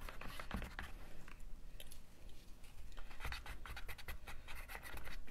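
Wooden craft sticks stirring and scraping dish-soap and cornstarch paint in the compartments of a plastic ice cube tray: a run of light ticks and scrapes, with a quieter stretch from about a second and a half to three seconds in.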